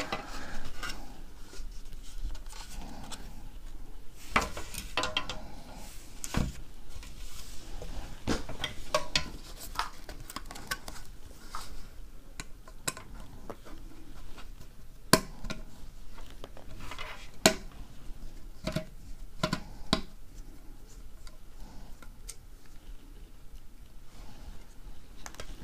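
Small screwdriver backing out the tiny screws that hold a drone's GPS module: scattered light metallic clicks and taps of the tool against the screws and shell, with two sharper clicks a little past the middle.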